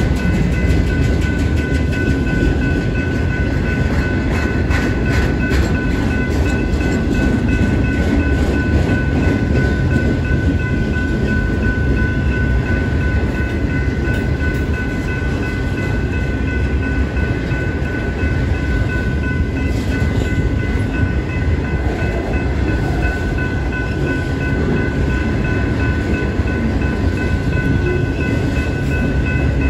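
Union Pacific freight train of autorack cars rolling past a level crossing, its wheels clattering over the rails in a steady rumble. Steady high ringing tones sound over it throughout.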